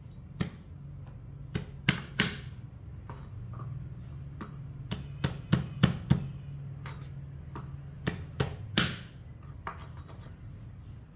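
Cleaver chopping garlic cloves on a plastic cutting board: irregular sharp knocks of the blade, a few at a time in quick runs, over a low steady hum.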